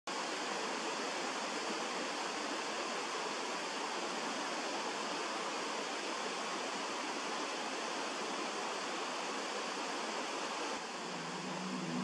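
Fast river rapids rushing over boulders: a steady, even hiss of white water. Music starts to come in near the end.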